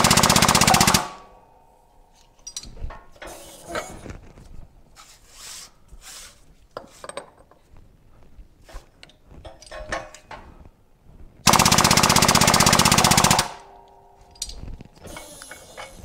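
A pneumatic hand tool rattling in two loud bursts of rapid hammering, one lasting about a second at the start and one of about two seconds near the end, driving on an aluminium Suzuki TC125 wheel hub while its wheel bearings are seated. Quieter clinks and knocks of the metal parts being handled come between the bursts.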